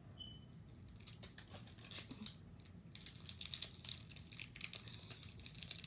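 Foil wrapper of a Pokémon booster pack crinkling and crackling as fingers work at its top edge to tear it open. The crackles grow busier from about three seconds in.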